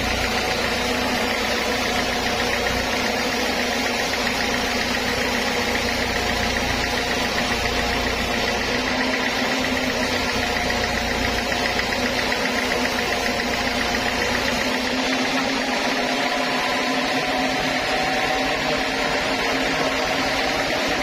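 A large band sawmill running steadily as it saws lengthwise through a log, giving a constant machine hum with a steady high whine.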